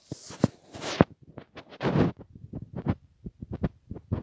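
Handling noise from the hand-held recording device: a quick, uneven run of small clicks and knocks, with two short rubbing rustles about a second and two seconds in.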